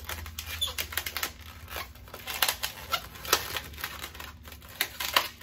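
A black 160 latex modelling balloon being twisted and worked by hand, giving an irregular run of short rubbery squeaks and crackles.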